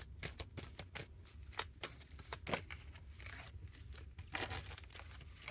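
Irregular light clicks and taps, several a second, with a couple of short rustles: hands at work on a tabletop.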